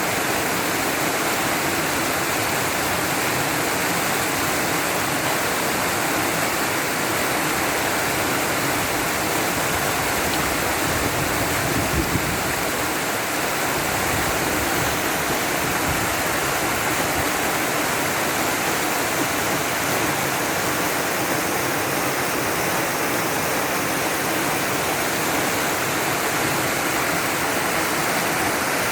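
Small waterfall: water falling and splashing, a steady, dense rush with no pauses.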